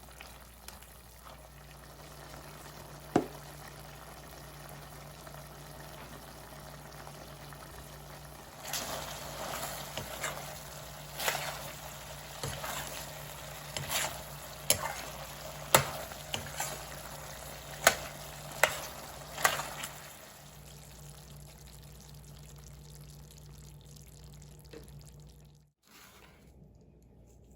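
Food frying in a pan, with a utensil clicking and scraping against the pan in a run of stirring strokes for a stretch in the middle, over a steady low hum.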